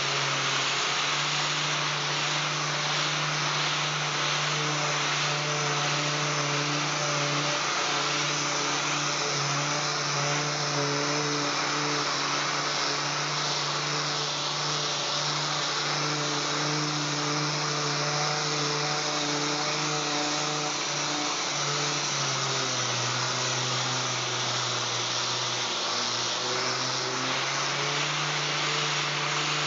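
A 3M 6-inch random orbital air sander with a hooked-up dust-extraction hose runs steadily while sanding a solid-surface (Corian-type) countertop: a constant whirring hum with a strong airy hiss. Its pitch dips for a few seconds late on, then recovers.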